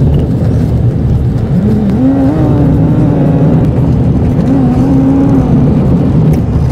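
Vehicle engine and road noise heard from inside the cab while driving on a gravel dirt track. The engine note rises and falls a few times over a steady low rumble.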